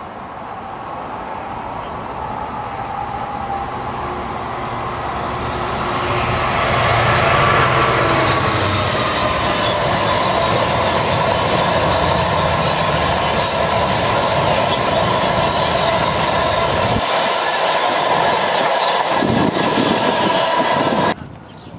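A train passing close by the lineside, growing louder over the first six seconds or so, then running loud and steady with high-pitched steady tones over the rumble. It cuts off suddenly near the end.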